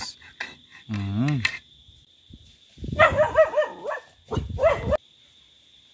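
A dog barking several times in quick succession about three seconds in, lasting about two seconds. Before that come a few light taps of a knife on a tin can and a brief murmur of a man's voice.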